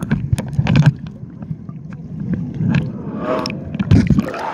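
Muffled sound of a camera's microphone held under pool water: low sloshing and surging with scattered sharp clicks and knocks, the higher sounds mostly cut off.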